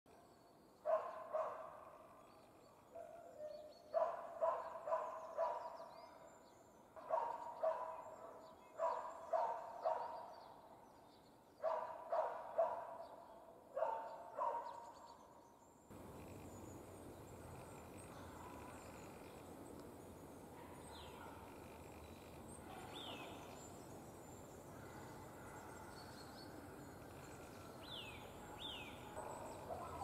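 A dog barking in clusters of two to four barks through the first half. Then a steady outdoor background hiss with a few short, high bird chirps.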